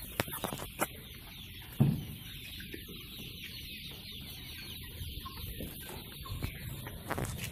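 A flock of chickens clucking and chattering in a pen, with a few knocks and one louder thump about two seconds in.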